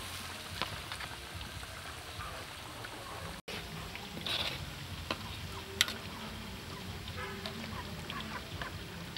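Hot oil bubbling in a large wok over a wood fire, with poultry calling briefly several times in the second half and a sharp tap about six seconds in.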